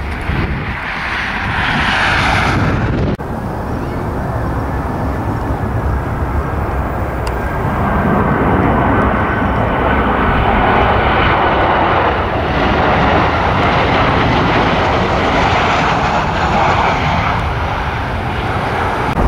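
Boeing 737 jet engines as airliners come in to land: a steady rushing noise with a thin high whine over it. The sound breaks off and changes about three seconds in, then grows louder from about eight seconds in as the next 737 passes on final approach.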